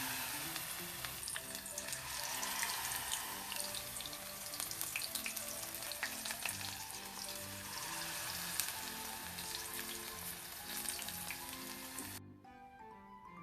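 Food frying in hot oil: a steady sizzle with many sharp crackles and pops. It cuts off suddenly about twelve seconds in.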